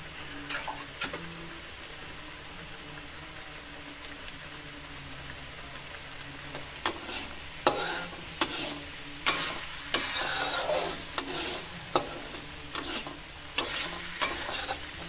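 Ground spice paste frying in oil in a wok, with a steady sizzle. A metal spatula stirs and scrapes against the wok, the scrapes and taps coming more often in the second half.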